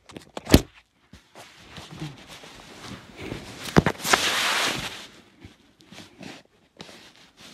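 Handling noise from a phone being moved against fabric: a sharp knock about half a second in, then soft scraping, two quick knocks just before the middle, and about a second of loud cloth rustling.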